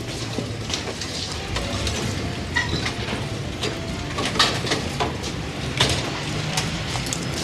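Bar ambience: scattered clinks and knocks of glasses and dishes over a low steady hum.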